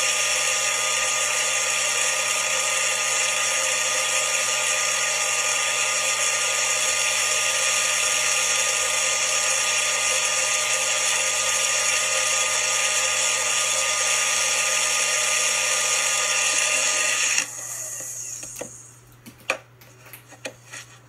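Magic Bullet Single Shot+ personal blender running steadily, blending soaked almonds and water into almond milk. The motor stops suddenly near the end, followed by a few clicks and knocks.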